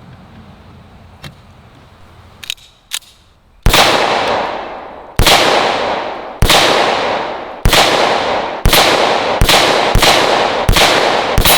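A Tokarev M57 pistol in 7.62x25mm fires nine shots after a few light handling clicks. The shots come at first about a second apart and then quicker, each followed by a long echoing tail.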